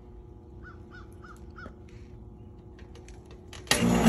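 A bird calls four times in quick succession about a second in. Near the end a click is followed by a sudden loud steady hum: the AC outdoor unit powers up as its disconnect is plugged in, and the newly fitted universal fan motor starts spinning a bare shaft with no fan blade.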